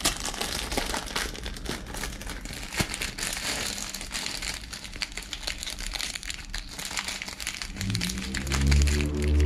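Thin plastic noodle wrapper and foil seasoning sachets crinkling and rustling as they are handled and pulled apart. Near the end, background music with sustained low notes comes in.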